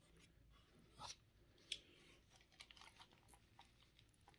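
Faint, scattered small clicks and scraping of pliers working a plastic installation strip out from under a rubber Hogue Handall grip sleeve on a pistol frame, with two slightly louder clicks about one and nearly two seconds in.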